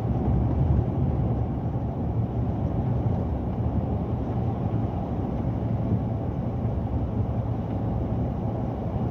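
Scania P 360 truck's diesel engine running steadily at cruising speed, with road noise, heard from inside the cab.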